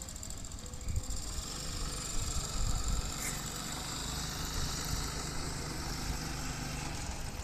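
Kite's sanu (bamboo humming bow) droning steadily in strong wind, with wind buffeting the microphone in low gusts.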